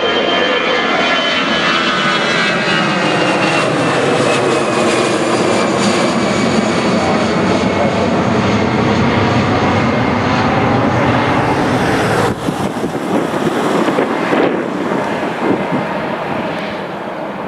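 Airbus A320-214's CFM56 turbofan engines at takeoff thrust as the jet climbs out and passes overhead: a loud, steady rush of jet noise with high whining tones that slide slowly down in pitch. It grows fainter and more uneven after about twelve seconds as the aircraft moves away.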